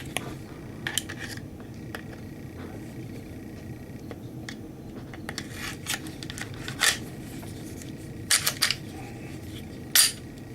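Scattered metallic clicks and clacks of a Glock 26 pistol being handled after reassembly, its slide and parts knocking together. A few sharper clicks come in the second half.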